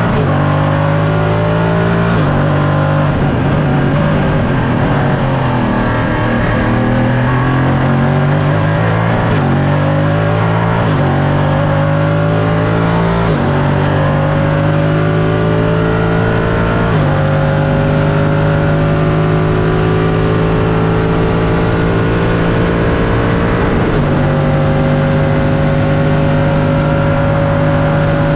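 LMP3 prototype race car's engine heard from inside the cockpit, accelerating hard up through the gears: the pitch climbs and drops sharply at each of several upshifts, then settles into a steady, slowly rising tone in top gear near the end.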